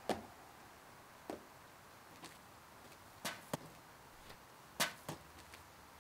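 Faint footsteps on top of a wall: about seven short, irregularly spaced taps, two of them close together a little past the middle.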